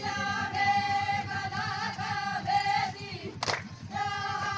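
A voice singing a folk song in long, held notes, with one short sharp click about three and a half seconds in.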